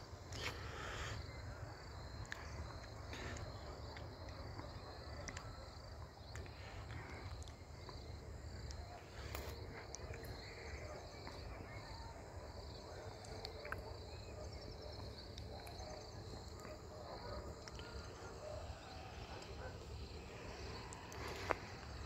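Insects chirping in a steady, faint pulsing rhythm, over a low rumble and scattered short clicks of footsteps.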